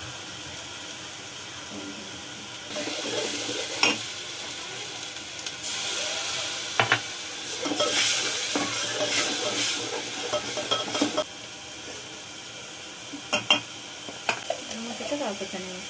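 Spice masala sizzling as it fries in an aluminium pan, stirred with a steel spoon that scrapes the bottom and clicks against the pan a few times. The frying hiss grows louder in the middle while it is being stirred, and two quick clicks come near the end.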